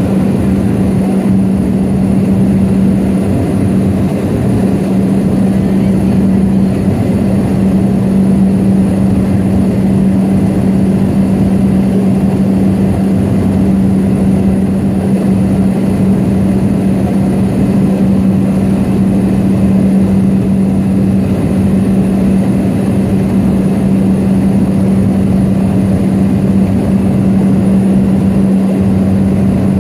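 Propeller-driven floatplane in level flight, heard from inside the cabin: a loud, steady engine and propeller drone with a constant low hum.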